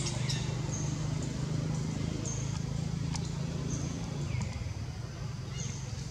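Outdoor ambience: a steady low hum under short, high chirps every second or two, with a couple of brief downward-sliding calls and a few faint clicks.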